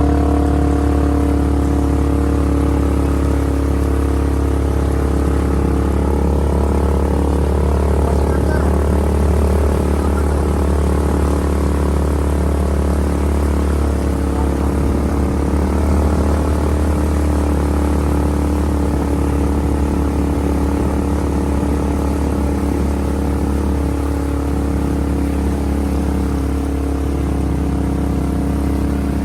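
Off-road vehicle engine running at a steady speed, a constant drone that barely changes in pitch.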